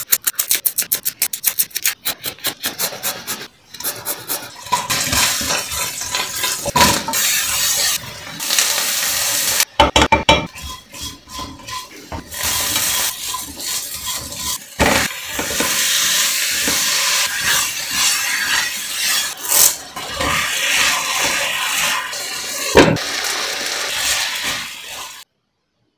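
Quick knife strokes chopping on a wooden board, then food sizzling as it fries in a nonstick pan, with a spatula stirring and clacking against the pan. Raw chicken pieces go into the hot pan partway through. The sound cuts off suddenly just before the end.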